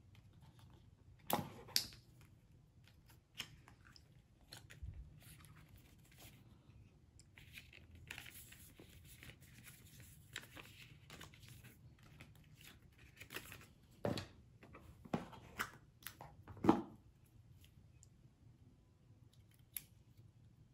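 Unboxing handling noise: paper and cardboard packaging rustling and crinkling, broken by scattered sharp clicks and knocks as pieces are picked up and set down. The loudest knock comes near the end.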